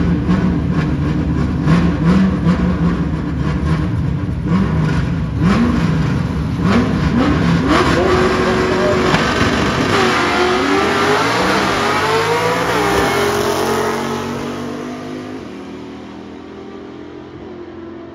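Manual-transmission drag race cars launching down the strip. A loud engine rumble is followed by engine pitch that climbs and drops back again at each gear shift, then fades away over the last few seconds.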